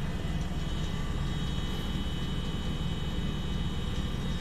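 Maxtor 7120AT hard drive running with its cover off, its spindle spinning the exposed platters: a steady high whine over a low hum.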